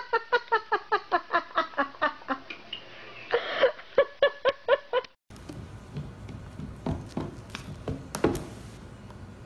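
A person laughing in quick bursts, about five a second, for around five seconds before it cuts off. After that there is only low room noise with a few faint taps.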